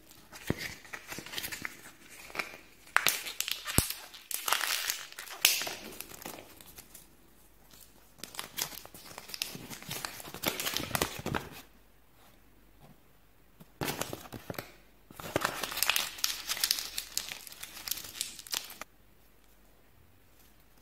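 Clear plastic toy bag and glossy paper instruction leaflet from a Kinder Joy capsule crinkling as they are handled and unfolded. It comes in several stretches with a quiet pause partway through and stops near the end.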